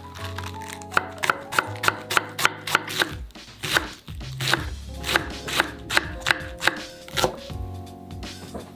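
Seki Magoroku Akane chef's knife shredding cabbage on a bamboo cutting board: a quick run of crisp cuts, each ending in a knock on the board, about three a second, with a short pause midway.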